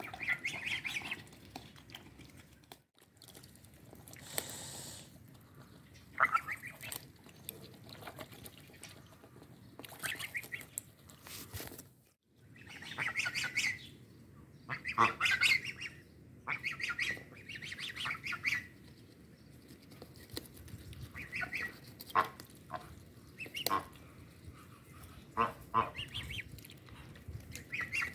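Domestic geese calling in short honks and cackles, in clusters through the clip, with wet clicking of their bills dabbling in a watermelon rind.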